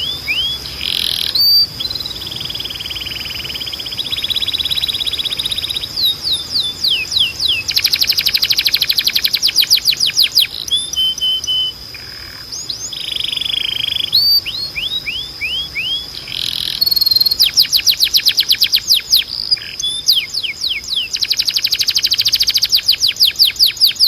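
Timbrado canary singing a continuous song of fast trills, runs of short falling notes and longer rolling phrases, with a steady high tone running underneath.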